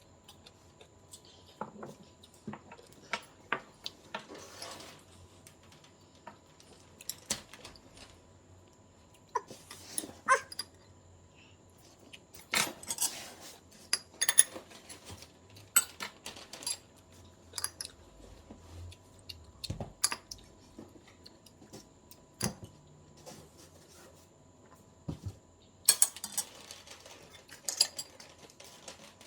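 Chopsticks or utensils clicking and tapping against a sushi plate or container while eating, in irregular sharp taps with short pauses between.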